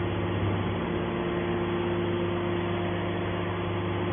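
Hydraulic scrap metal baler's electric motor and hydraulic pump running steadily, a constant hum over a noisy drone.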